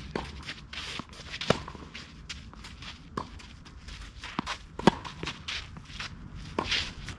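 Tennis rally on a clay court: shoes stepping and scuffing on the clay, with sharp racket hits on the ball about every one and a half to two seconds, the loudest about two thirds of the way through.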